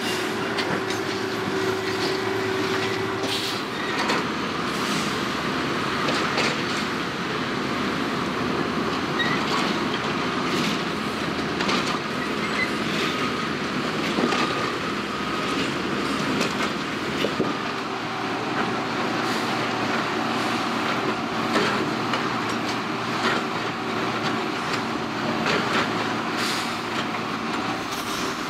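Rail-mounted track maintenance machines at work during railroad tie replacement: diesel engines and hydraulics running steadily, with many sharp metal clanks and knocks throughout, thicker in the second half.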